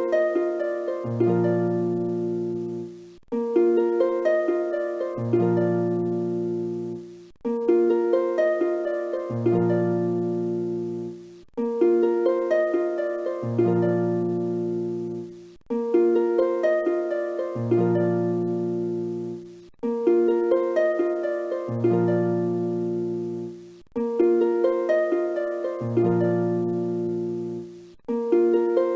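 Background music: a short phrase of struck, ringing notes over a low bass note, looping every four seconds or so.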